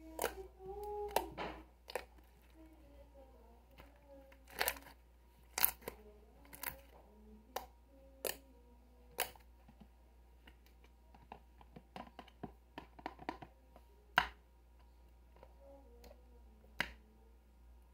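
Irregular sharp clicks and taps, about one or two a second, from an object being handled close to the microphone, with faint wavering tones underneath.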